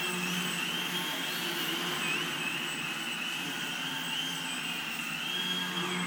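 Crack Yak 55 model aerobatic plane's electric motor and propeller running in flight, a high whine that steps up and down in pitch as the throttle changes.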